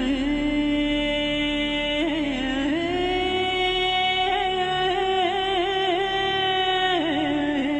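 Accompanying music: a single voice singing long, held notes, moving up to a higher note about two seconds in and back down near the end.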